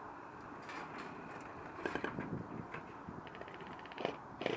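Steady rustling and handling noise on a body-worn action camera's microphone, with a few soft knocks and, a little past the middle, a short run of fast faint clicks.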